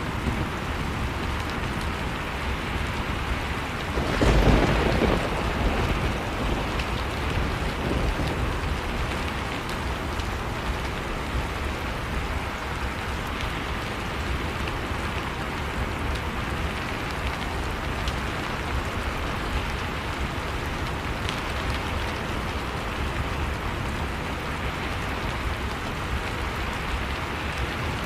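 Heavy rain falling steadily, with a clap of thunder about four seconds in that rumbles off over the next couple of seconds and is the loudest sound here.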